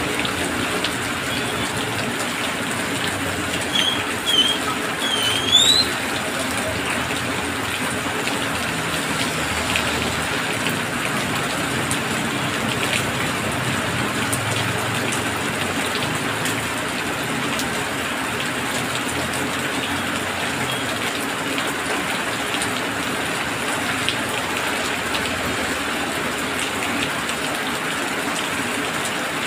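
Heavy rain falling steadily on asphalt and a parked car, with the hiss of motorbike and truck tyres passing on the wet road. A few short, high chirps break through about four to six seconds in.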